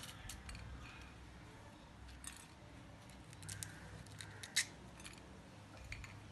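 Faint clicks and small crisp crackles as wooden toothpicks are worked out of fried sweet potato rolls by hand, with one sharper click about four and a half seconds in.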